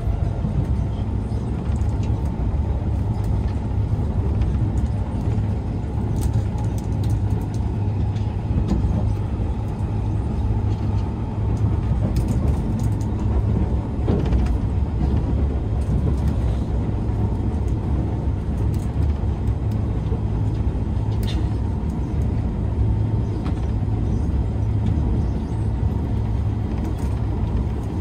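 Interior running noise of an SMRT Kawasaki C151 metro train cruising between stations: a steady low rumble of wheels on rail under a faint steady whine. There are a few light clicks or rattles along the way.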